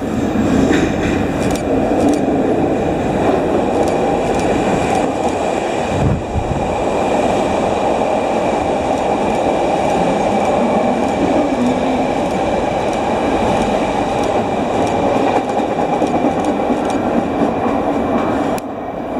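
CTA holiday rapid-transit train running along a subway station platform: a loud, steady rumble of steel wheels on rail, with a brief low knock about six seconds in, heard in an underground station.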